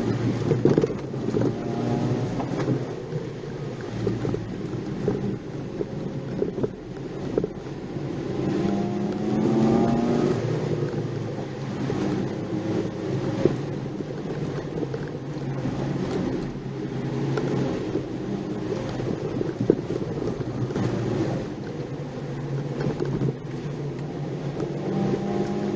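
Nissan March 12SR's 1.2-litre four-cylinder engine heard from inside the car, climbing in pitch as it accelerates about 1 to 2 seconds in, again around 8 to 10 seconds in and near the end, and easing off in between. Steady road and tyre noise runs underneath, with scattered small knocks from the rough surface.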